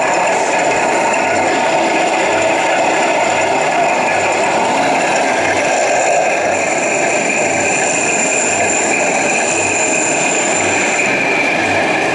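1/16-scale radio-controlled tanks running: a steady mechanical whine and rattle, with a low pulse about twice a second.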